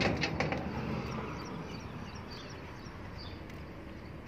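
Outdoor street ambience: a steady low hum of distant traffic with a few faint bird chirps, after a short knock right at the start.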